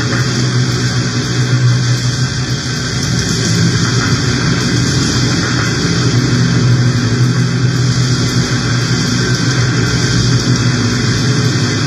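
Loud, steady droning noise: a strong low hum under a dense hiss, unchanging throughout.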